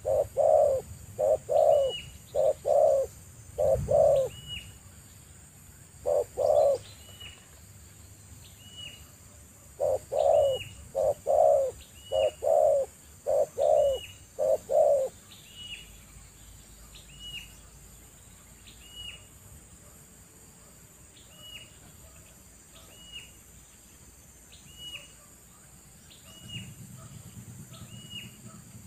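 Spotted dove cooing: two runs of deep, repeated coo notes that stop about halfway through. A short high note repeats steadily about every couple of seconds throughout.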